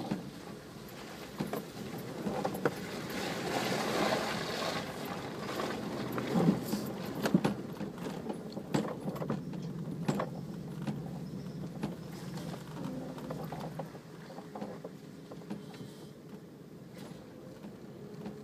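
Off-road 4x4 driving over rough ground: a steady engine drone with scattered knocks and rattles, busiest in the first half and easing off in the second.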